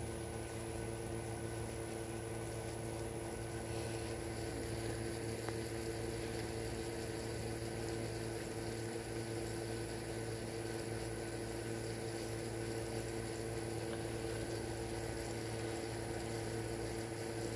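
A steady machine hum with several constant tones over a light hiss, unchanging throughout.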